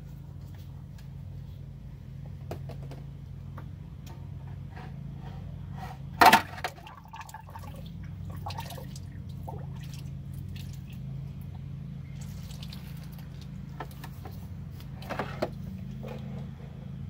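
Transmission fluid splashing and dripping as the Allison transmission pan is lowered off the case, with a sudden loud clank about six seconds in as the internal filter drops out and strikes the bottom of the pan.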